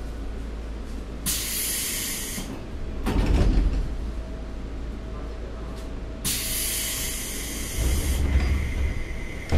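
Compressed air hissing twice, in strong spells of about a second and about two seconds, from the pneumatic door or brake gear of a Seibu 2000 series electric train car standing at a station, with a heavy thud between the two hisses. A low hum from the car's equipment runs under both.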